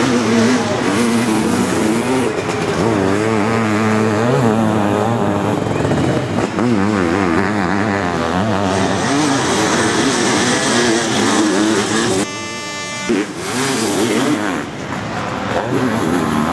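Motocross sidecar outfits' engines revving hard, pitch rising and falling as the throttles open and close, with more than one engine overlapping. The sound drops briefly about twelve seconds in before the engines return.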